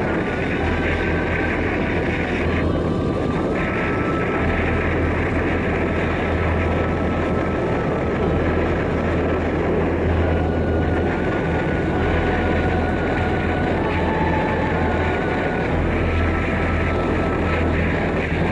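BMW R1200RT's boxer-twin engine running steadily on the move, under a steady rush of wind and road noise.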